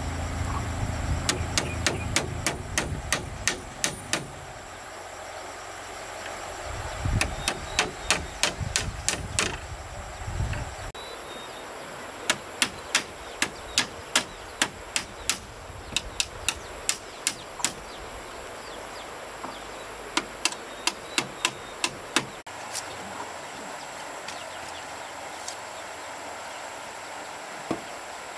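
Runs of quick, sharp blows from a hand tool, about three a second, broken by short pauses, over a steady background hiss; a low rumble underlies the first third.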